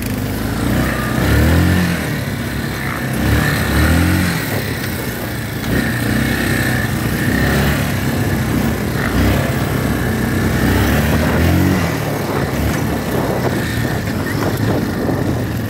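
ATV engine running under way over a rough dirt trail, its pitch rising and falling several times as the throttle is worked, over a steady hiss.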